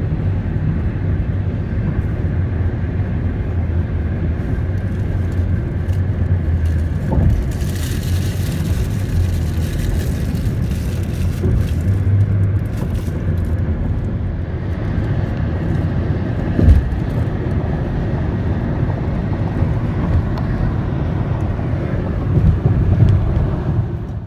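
Steady road noise heard inside a car cruising at highway speed: a low rumble of tyres and engine. A hissing rush swells and fades about a third of the way in, and there is a single thump about two-thirds of the way through.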